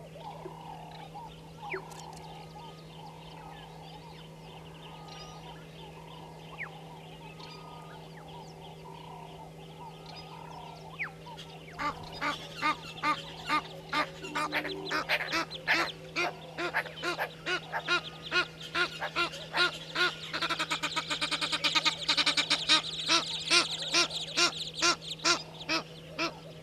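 Egyptian geese honking: a long series of loud, harsh calls repeated about twice a second. It starts partway through and builds to a faster, denser run near the end.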